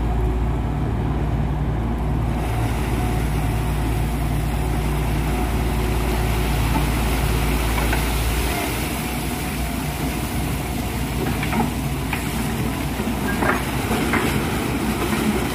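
Diesel engine of a grab-dredging crane running steadily as its clamshell grab is hoisted out of the water, muddy water pouring and splashing off the grab. The engine's deep drone drops about eight seconds in, and a few short clicks come near the end.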